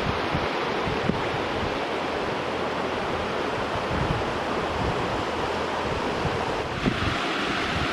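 River water rushing in a steady, even roar of noise, with wind buffeting the microphone in irregular low gusts.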